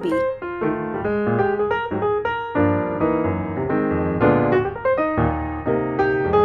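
Background music led by piano, with a melody of changing notes over a steady bass line.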